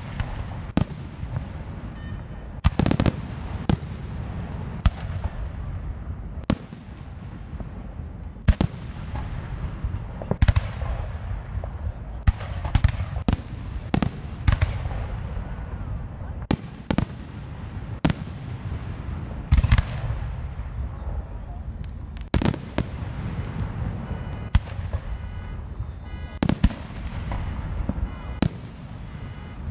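Aerial fireworks shells bursting overhead in an irregular run of booms, about one a second, some coming in quick pairs or triplets, over a steady low rumble.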